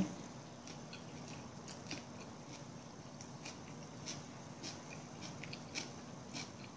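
Close-up mouth sounds of someone biting and chewing wheat toast with a fried egg and vegetables: irregular soft crunches and wet smacking clicks. A faint steady hum lies underneath.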